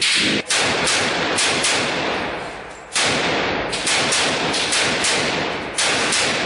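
Rifle gunfire at close range in a room: about a dozen shots, fired singly and in quick runs of two or three with pauses of about a second, each shot ringing out in a long echo.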